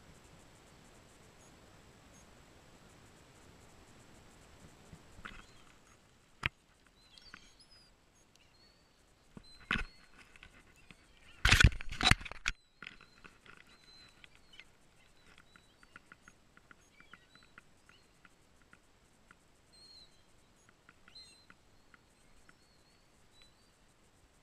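Handling knocks in a kayak: a sharp knock, a louder one a few seconds later, then a loud clatter of several knocks in quick succession. Faint bird chirps and small clicks come before and after it.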